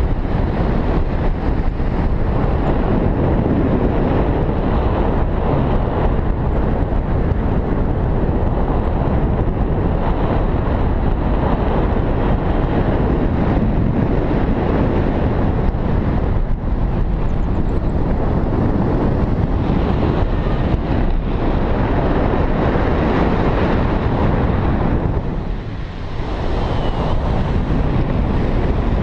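Wind rushing over the camera's microphone from the airflow of a tandem paraglider in flight: a loud, steady rumble that eases briefly near the end.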